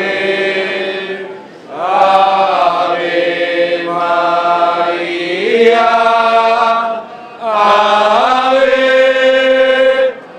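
A group of men chanting together in loud, long held phrases, with brief pauses for breath between them.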